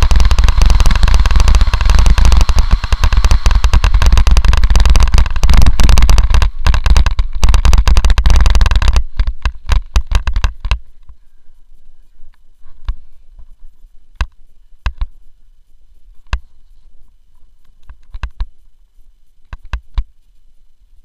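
Mountain bike rolling down a rough dirt trail, with loud, dense rattling and clattering from the bike and its mounted camera shaking over the ground. It stops about ten seconds in as the bike halts, leaving only scattered sharp clicks.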